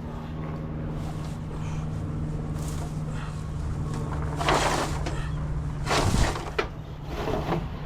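A steady motor hum, with rustling and handling noises about four and a half and six seconds in and a short sharp click just after.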